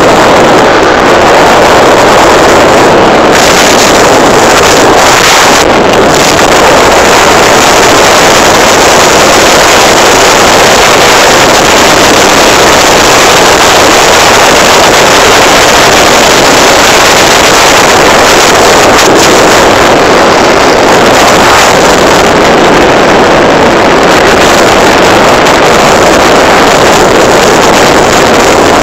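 Loud, steady wind rush over a phone's microphone on a moving motorcycle, with the motorcycle's engine running underneath.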